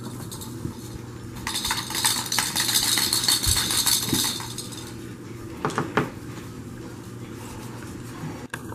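The bell inside a plastic jingle-ball toy rattles rapidly for about three seconds, starting about a second and a half in, as the ball is shaken and rolled by hand. A brief clatter follows about two seconds later.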